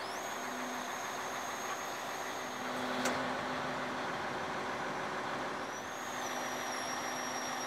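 Hydraulics and engine of a Bison (Mercedes-Benz Actros 8x8) recovery truck running as the crane is readied and its stabilizer legs are set out. A steady machine noise carries a high whine that steps in pitch a few times, with a single click about three seconds in.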